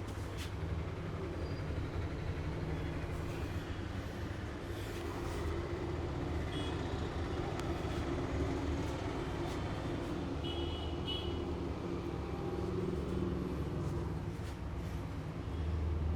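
Steady low background rumble, with a few faint clicks and brief high tones.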